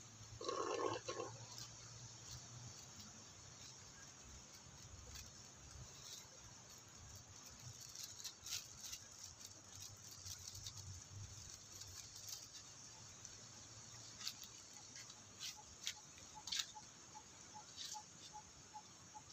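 Faint outdoor ambience: a short animal call in the first second or so, then scattered faint clicks, and in the last few seconds a faint regular ticking about twice a second.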